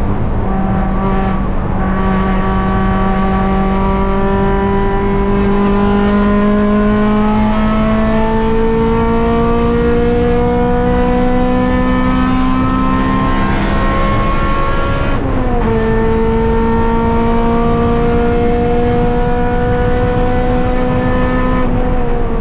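Honda Civic Si engine under hard acceleration on track, its pitch climbing slowly through a long pull, dropping sharply at an upshift about two-thirds of the way in, then climbing again before falling off near the end as the driver lifts.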